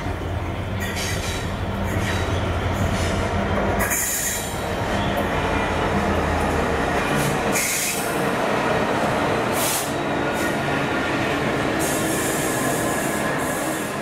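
A train running past: a steady loud rush of wheels on the rails, with a low engine hum in the first few seconds and short hissing surges later on.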